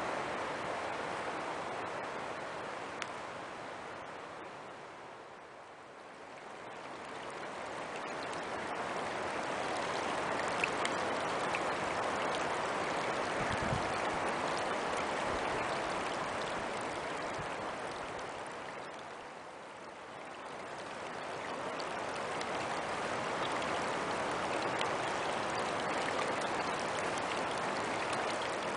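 Small rocky mountain creek babbling over stones, a steady rush of shallow water that fades twice, about six seconds in and again about two-thirds through, and swells back each time.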